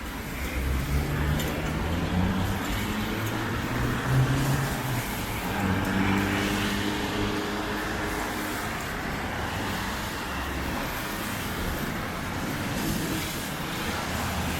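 Road traffic on a rain-soaked street in heavy rain: cars passing with engine hum and the hiss of rain and wet tyres. The engine sound swells about four to eight seconds in.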